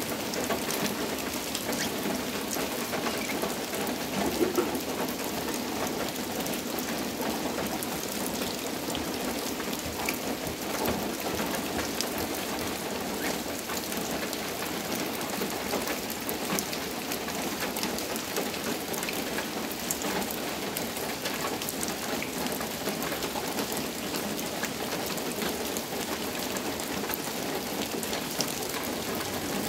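Steady rain falling, a dense even patter made of many small drop hits.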